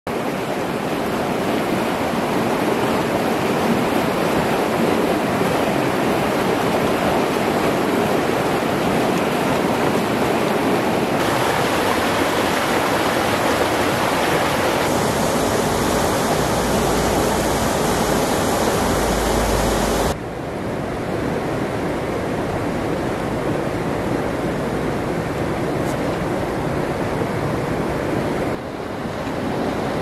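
White-water rapids of a rocky stream rushing, a steady noise of water over stones. The noise shifts abruptly in level and tone several times, and turns quieter and duller about two-thirds of the way through.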